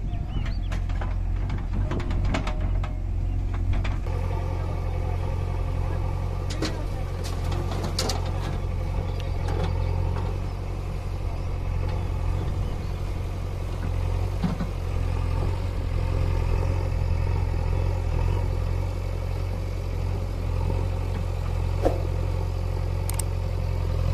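Diesel engines of a tractor and a JCB backhoe loader running steadily at idle, an unbroken low hum. Sharp clanks and knocks come in the first few seconds and again about a third of the way in.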